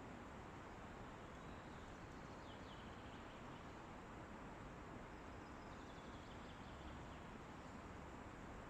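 Faint, steady wind in a forest, with a few faint, high bird chirps in the distance.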